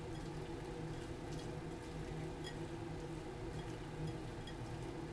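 Fingers stirring wet raisins in a bowl: faint, scattered soft clicks and squishes over a steady low hum.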